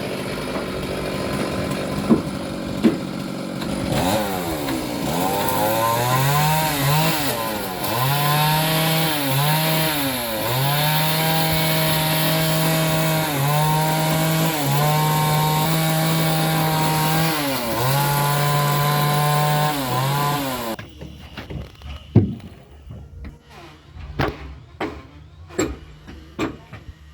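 Power saw cutting boat timber, its motor pitch sagging under load and recovering again and again, about a dozen times. It cuts off suddenly near the end, followed by scattered knocks.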